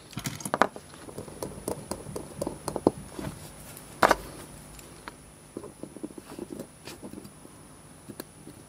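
Light, scattered clicks and taps of tweezers and fingers handling a small watch movement clamped in a metal movement holder, with one sharper click about four seconds in.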